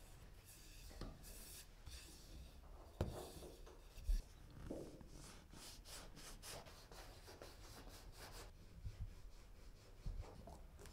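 Wooden rolling pin rolling and rubbing over dough on a wooden board, then a plastic donut cutter pressed and twisted through the dough sheet, scraping and knocking dully against the board. The loudest sound is a single thump about four seconds in.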